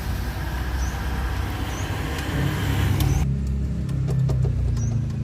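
A road vehicle driving: the low, steady hum of the engine under a hiss of wind and road noise. About three seconds in, the hiss drops off abruptly, leaving the engine hum, which climbs slightly.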